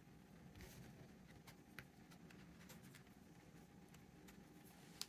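Faint clicks and rustles of a stack of baseball trading cards being handled, with one sharper click near the end, over a low steady room hum.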